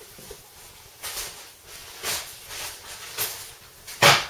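A few short hissing brushing strokes, then a much louder one about four seconds in.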